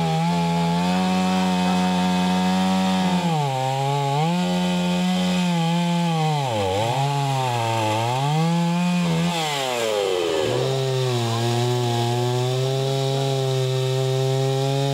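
Stihl two-stroke petrol chainsaw cutting into a tree trunk at high revs. The engine note dips and recovers several times as the chain bites into the wood, then runs steady at a lower pitch in the cut.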